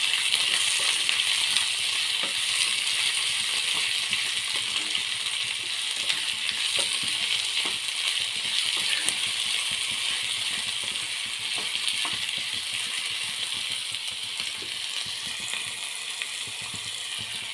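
Chopped capsicum sizzling in hot oil in a pan as it is sautéed, the sizzle slowly getting quieter, with a few light clicks scattered through it.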